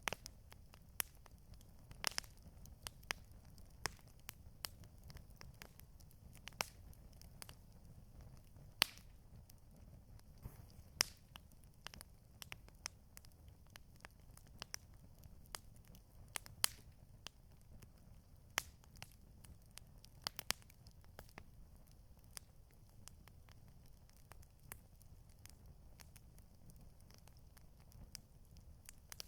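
Campfire crackling: irregular sharp pops and snaps, a few louder than the rest, over a low steady rumble.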